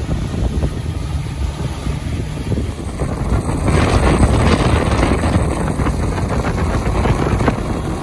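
Mercury 400 outboard driving a bay boat at speed, with wind buffeting the microphone over the rush of the wake. The sound grows louder about halfway through.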